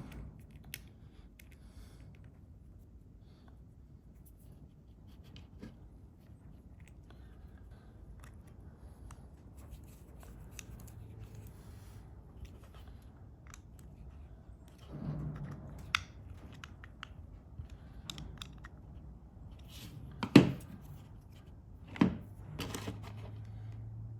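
Small metal parts and hand tools being handled during carburetor reassembly: scattered light clicks and rustling, with two sharp knocks about 20 and 22 seconds in, over a faint low hum.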